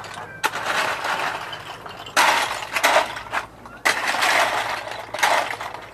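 A heap of shells clattering and sliding as a long blade is dragged and pushed across it to level the pile. There are four scraping, rattling bursts, each starting sharply and fading over about a second.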